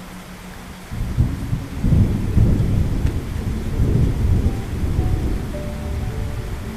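A roll of thunder: a low rumble that starts suddenly about a second in, swells, and slowly dies away toward the end, with rain falling.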